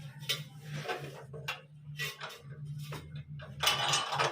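Tools and metal fittings of a plumbing job clinking and knocking in short, scattered strikes over a steady low hum, with a louder scraping noise about three and a half seconds in.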